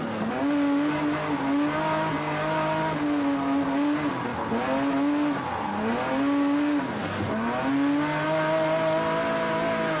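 Rally car engine heard from inside the cockpit, revving hard through the gears. Its pitch climbs and drops back at each gear change, with a deeper fall about seven seconds in.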